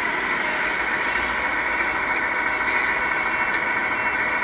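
Radio-controlled scale model trucks manoeuvring, their loudspeaker sound modules playing a steady diesel engine run.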